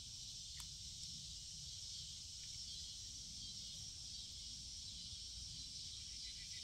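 Cicadas droning in a steady, high-pitched buzz, with one faint click about half a second in.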